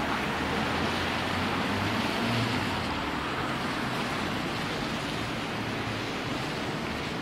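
Steady, even hiss of outdoor city background noise with a faint low hum beneath it.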